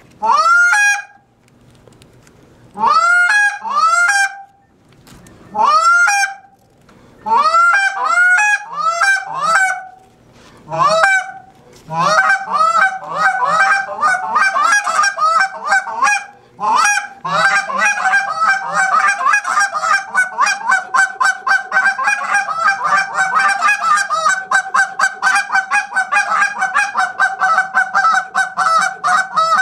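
Hand-held goose call blown in imitation of Canada goose honks. It starts with separate loud honks, each breaking sharply upward in pitch, often in pairs with pauses between. About twelve seconds in it moves into a continuous run of rapid clucks and chatter that speeds up toward the end.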